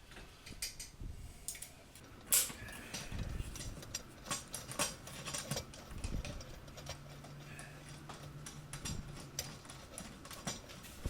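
Scattered light metallic clicks and knocks of garbage disposal mounting hardware being handled and fitted at a sink drain, with a low steady hum in the middle.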